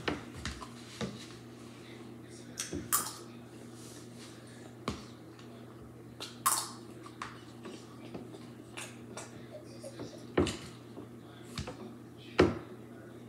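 A spoon clinking and scraping against a bowl of rice in short, irregular taps, about a dozen spread across the stretch, over a faint steady hum.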